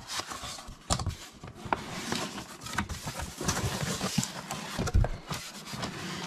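Corrugated cardboard box being opened by hand: flaps pulled back and rubbing with a scraping rustle, with a few sharp knocks along the way.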